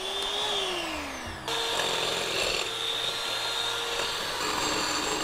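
Electric hand mixer whipping egg whites in a glass bowl. Its pitch rises and falls during the first second and a half, then it runs steadily with a whine.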